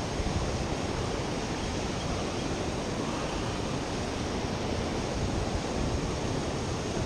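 Steady rushing of water pouring over a lake spillway, an even roar with no breaks or separate sounds.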